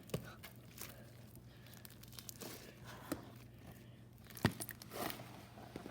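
Faint rustling and handling noises with scattered light clicks and one sharp knock about four and a half seconds in, over a steady low hum.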